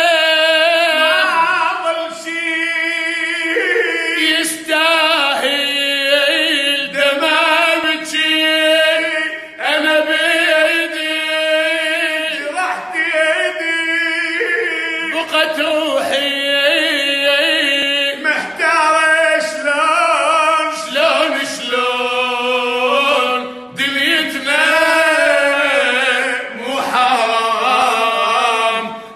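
Arabic vocal music: a voice sings a slow melody in long, wavering held notes.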